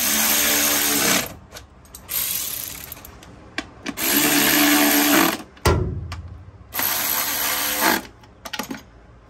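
Cordless power ratchet run in four bursts of about a second each, spinning bolts on the engine's top end. A single low knock falls between the third and fourth bursts.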